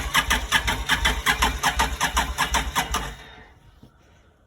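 Can-Am Outlander ATV engine cranking on its electric starter, turning over in a steady rhythm of about five strokes a second without firing, then stopping about three seconds in: the engine turns over but will not start.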